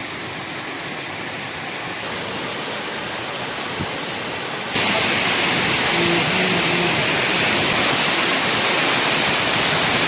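Waterfall: a steady rush of falling water, which gets abruptly louder about halfway through.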